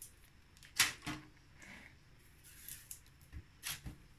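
Hands pulling and shaping yeast dough in a floury plastic mixing bowl: soft handling noise with a few light knocks against the bowl, the loudest about a second in and a short cluster near the end.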